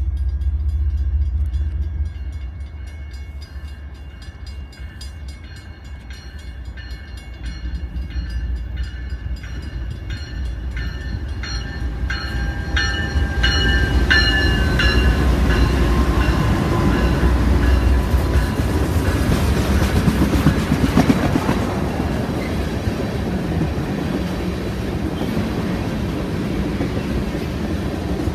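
Norfolk Southern freight train passing: a bell rings in steady, even strokes as it draws near, then the diesel locomotives go by about halfway through with a loud rumble, followed by a string of tank cars rolling past with wheels clacking over the rail joints.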